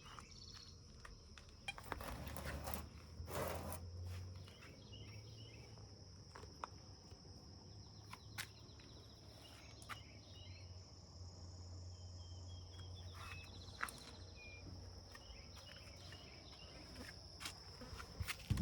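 Insects trilling steadily in a single high tone, with a few rustling knocks and scattered clicks from nearby handling.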